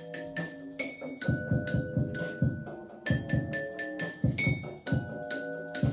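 Mallets striking a children's glockenspiel and single note bars, ringing metallic notes on a few repeated pitches (F, C and A), over a steady low beat.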